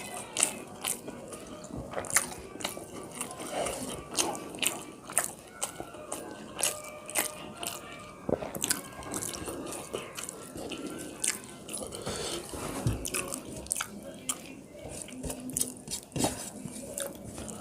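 Close-miked eating of rice and fish curry: chewing and lip smacks with many sharp, irregular clicks, several a second.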